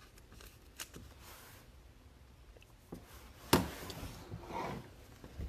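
Trading cards and card packaging handled on a table: a few sharp clicks, the loudest about three and a half seconds in, with brief soft rubbing and rustling between them.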